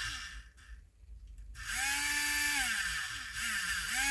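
The small DC motor of a disassembled electric pencil sharpener, powered from a 12-volt wall adapter. About two seconds in it whines up to a steady speed, then winds down with a falling pitch, and near the end it starts again.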